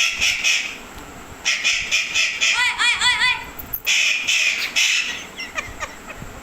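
Pet parrot giving harsh, angry squawks in several bursts, with a quick run of short repeated chirps in the middle and a few quick gliding calls near the end.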